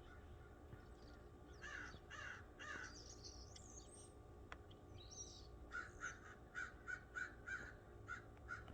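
Large black birds calling faintly: a few harsh calls and high gliding notes, then a quick run of short repeated notes, about three a second, in the second half.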